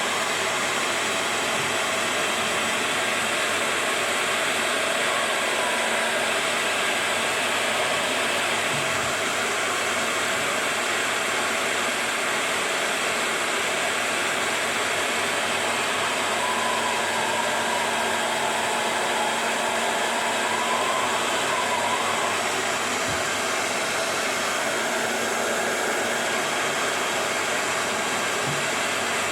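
Hair dryer blowing steadily, heating a plastic bottle sleeve to shrink it onto a juicer part.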